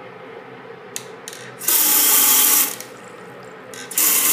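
A two-handle bathroom sink faucet is worked: a couple of clicks from the handle, then water rushes from the tap into the basin for about a second, stops, and starts again near the end.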